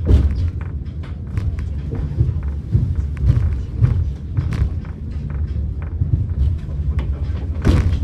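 Hakone Tozan Cable Car funicular car running along its track, heard from inside the car: a steady low rumble with frequent irregular knocks and clatters, a louder knock near the end.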